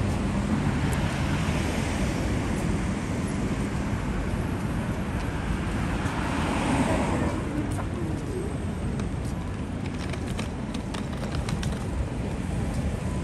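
City street traffic noise: a steady hum of road vehicles, swelling as one passes about halfway through and then easing, with a few faint clicks near the end.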